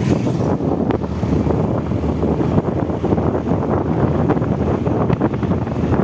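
Wind buffeting the microphone of a moving two-wheeler, a steady low rumble with the vehicle's road and engine noise beneath it.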